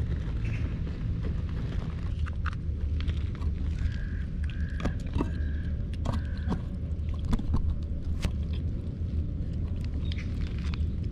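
Calico kitten eating wet cat food from a plastic tub at close range: scattered soft chewing and lapping clicks over a steady low rumble. About four seconds in, four short high notes follow one another over a couple of seconds.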